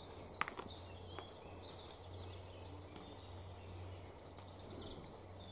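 Small songbirds singing: a quick run of repeated downward-sliding high notes in the first half, then a higher wavering phrase near the end, over a faint steady low hum.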